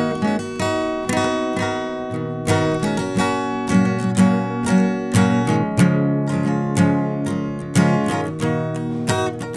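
Background instrumental music: a guitar playing a steady run of plucked notes.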